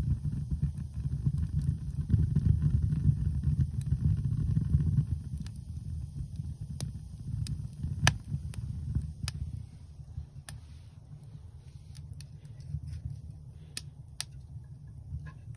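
Pine kindling burning in a wood stove: sharp crackles and pops scattered over a low rumble of the flames, the rumble easing after about five seconds.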